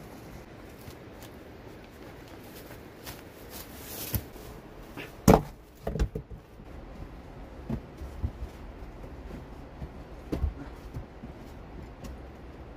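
Rocks being handled and set down on a dry-stone wall: a few scattered knocks and thuds, the loudest about five seconds in, over a steady low background hiss.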